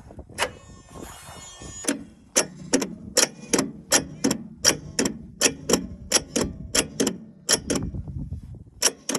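Starter clicking without cranking on an engine that has sat about 15 years: a steady run of sharp clicks, about three a second, and the engine never turns over. This is the sign of either a seized engine or a bad starter.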